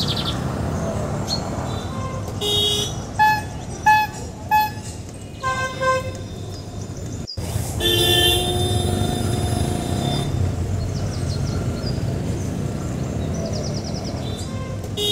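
Road traffic with a steady rumble and car horns honking: a run of short toots in the first half, then, after a brief dropout about halfway through, longer held horn blasts.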